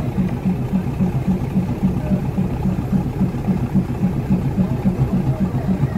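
Diesel engine of a stopped passenger train idling, with a steady, even pulse of about five beats a second.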